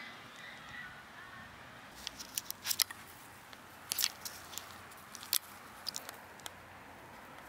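Irregular crunching clicks from footsteps on dry, gravelly dirt, starting about two seconds in and coming in uneven clusters.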